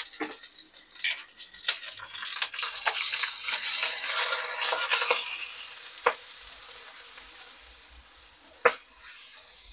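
Sliced shallots, garlic, red chillies and lime leaves sizzling in hot oil in a wok, stirred with a silicone spatula that clicks against the pan. The sizzle swells to its loudest about four to five seconds in, then dies down, with two sharp taps of the spatula on the wok near the end.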